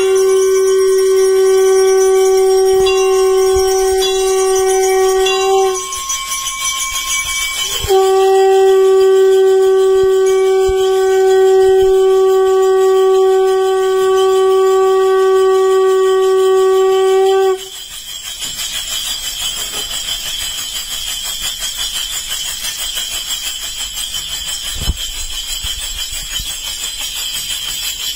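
Conch shell blown in two long steady blasts on one unchanging note, the first about six seconds long, the second about ten seconds after a short break, ending abruptly: the conch call sounded during the lamp-waving arati of a puja.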